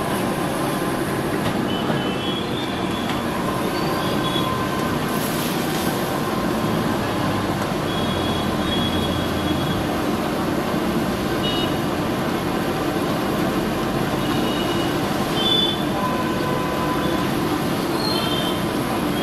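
Steady roar of a large gas wok burner running at full flame under a wok of simmering gravy.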